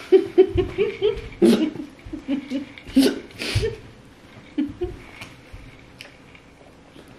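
Laughter: a person giggling in a quick run of short pulses for about the first four seconds, then a couple of softer ones.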